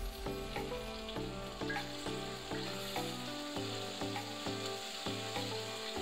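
Sliced onions sizzling in hot oil in a wok. Chopped tomato goes in, and near the end a wooden spatula stirs the pan. Background music with a steady run of notes plays throughout.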